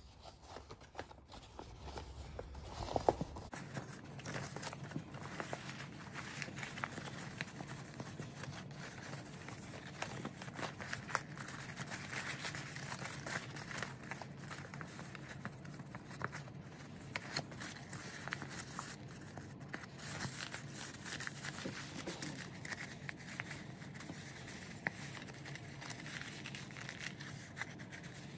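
Paper crinkling and crackling as hands collapse a creased origami magic ball folded from letter paper. It is a steady run of many small crackles as the creases fold in.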